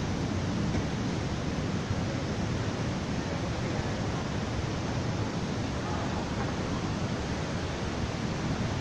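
The Radovna River running fast over rocks in Vintgar Gorge, a steady, unbroken rush of water.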